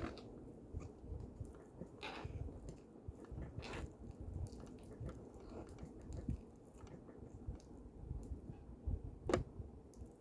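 White fluffy slime being mixed by hand, with irregular wet squelches and sticky clicks; one sharper click near the end.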